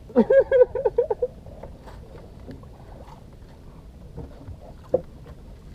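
A man's voice in quick repeated bursts for about a second at the start, then the low steady background noise of a small fishing boat at sea, with one short sharp sound about five seconds in.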